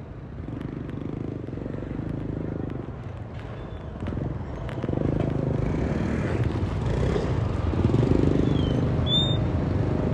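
Motorcycle engines running in street traffic, swelling louder from about halfway through as bikes come close.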